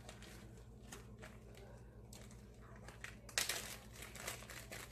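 Plastic bag crinkling and rustling as it is handled, in a run of crackles that is loudest about three and a half seconds in, over a steady low hum.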